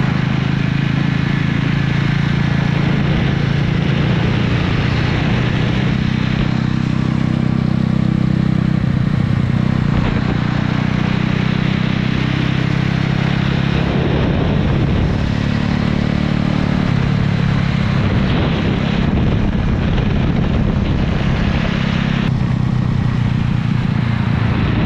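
Small motor scooter engines running steadily at riding speed, with wind and road noise rushing over the microphone; the engine note shifts up and down slightly a few times.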